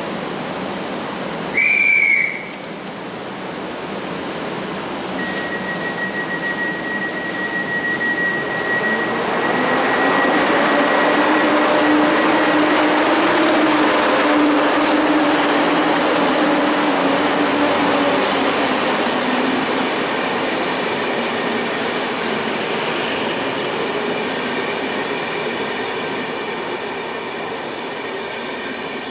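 PKP Intercity EP07 electric locomotive pulling a passenger train out of the platform and past close by. A short, loud whistle blast sounds about two seconds in. Then a steady high whine and the locomotive's low hum rise with the rolling noise, loudest around the middle as the locomotive passes, and ease off as the coaches roll by.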